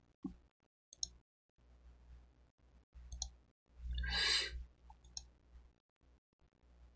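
A few faint, sharp clicks spread through the quiet. About four seconds in comes one short rush of breathy noise, the loudest thing heard, lasting just under a second.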